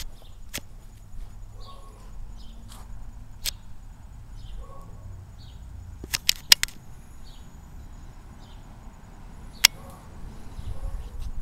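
Outdoor low rumble of wind on the microphone, broken by scattered sharp clicks, with a quick cluster of three about six seconds in. Faint short high chirps recur about once a second.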